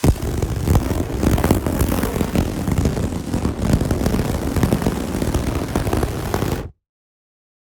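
A large fire burning: a steady low rumbling roar full of crackles and pops, which starts abruptly and cuts off suddenly near the end.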